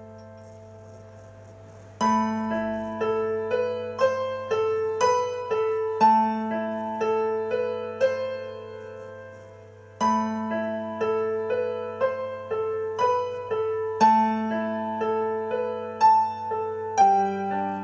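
Piano playing an instrumental break. A held chord dies away, then about two seconds in a gentle melody starts, its notes about every half second in phrases that repeat, over a steady low bass tone.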